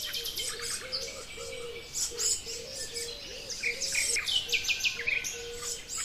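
Wild forest birds chirping and calling in short, quick series of high notes, with a faint steady low tone underneath.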